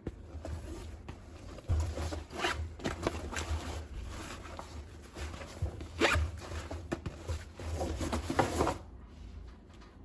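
Hands handling an object, with a run of irregular, zipper-like rasping strokes and rustling that stop about nine seconds in.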